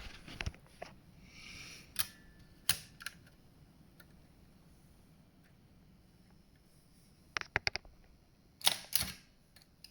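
Clicks and clacks of a circa-1909 Thürey typewriter's keys and typing mechanism: a few single clicks in the first three seconds, a quick rattle of small clicks a little after seven seconds, and two louder strikes near the end.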